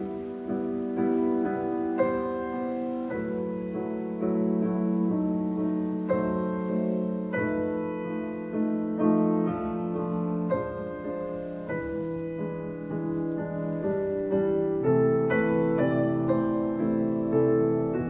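Slow piano music: single notes and chords struck about once a second and left ringing.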